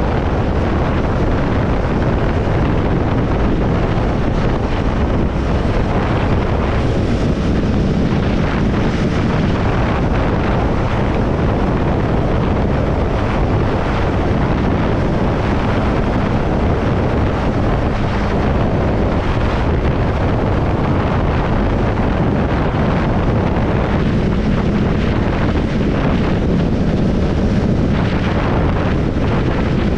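Triumph Scrambler 400 X's single-cylinder engine running steadily while riding on the road, with wind rushing over the microphone.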